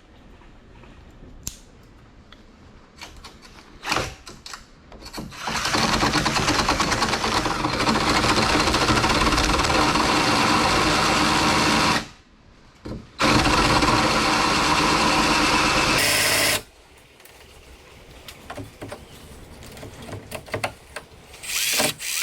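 Handheld power drill running at a steady speed, drilling out carbon fiber hood material. It runs for about seven seconds, stops briefly, then runs again for about three more, with light handling clicks before and after.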